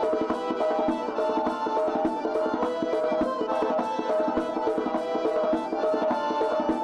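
Circassian folk dance music: a fast, even drum beat under a held melody line.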